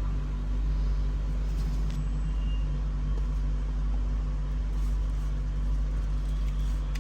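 A steady low mechanical rumble with a constant hum, unchanging throughout.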